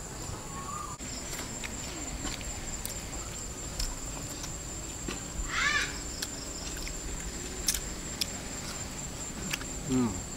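Insects chirring in a steady high-pitched drone, with a few sharp clicks, a short pitched call about halfway through and a brief voice near the end.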